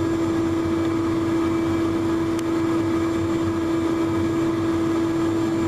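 Steady mechanical hum: one constant drone over a rushing noise.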